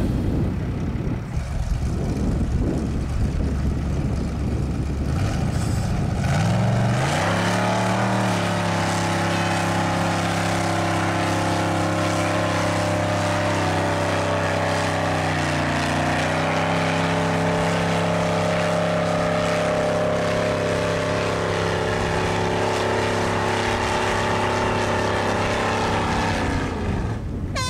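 Off-road buggy's engine rumbling, then revving up about seven seconds in and held at high revs as a steady drone, dipping briefly about halfway, while the buggy spins its wheels in the dirt pulling against a backhoe loader on a tow strap. The engine note drops away near the end.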